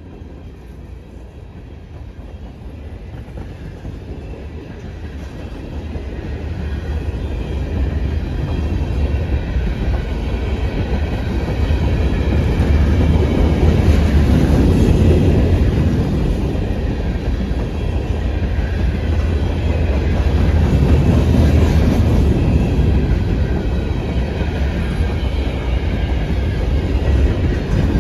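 A CN train rolling past: a heavy rumble with wheels clacking over the rail joints. It builds over the first dozen seconds, then stays loud with a couple of swells.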